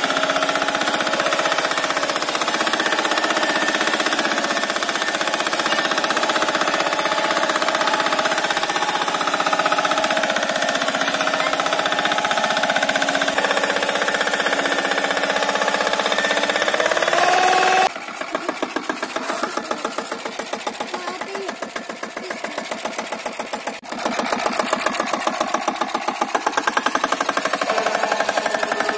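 Single-cylinder Lombardini diesel engine of a two-wheel tractor (power tiller) running under load as it pulls a trailer of firewood, with a rapid, even beat. About 18 seconds in the sound drops in level and turns sharper, then comes back up around 24 seconds.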